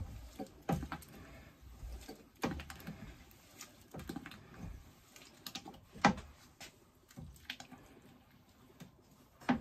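Wooden mash paddle stirring crushed malt into the water in a stainless-steel electric brewing kettle during mashing in, with irregular knocks and taps of the paddle against the kettle wall, the loudest about six seconds in.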